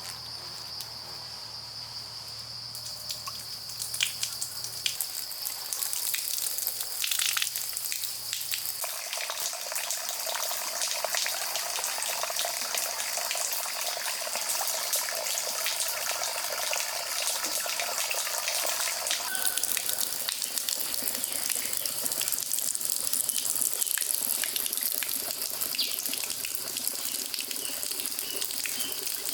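Water pouring and splashing steadily, growing louder about nine seconds in, as when a pond is being filled. A steady high-pitched insect drone runs underneath.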